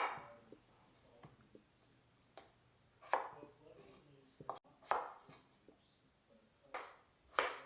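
Kitchen knife cutting on a cutting board: about eight separate sharp strokes at uneven intervals, a few of them louder with a short ring after.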